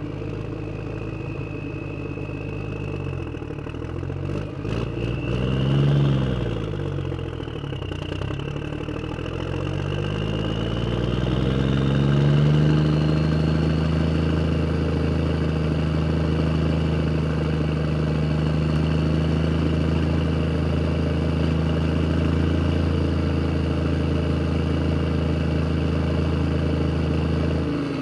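Vehicle engine idling, then revved briefly once about six seconds in, with a few clicks before it. From about ten seconds in the engine speed rises steadily as the vehicle drives away, then holds at a steady higher pitch.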